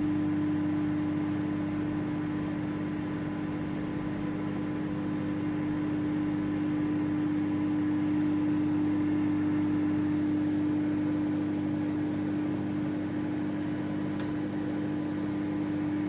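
Microwave oven running, giving off a steady hum with one strong tone over a whirring haze. There is a faint click near the end.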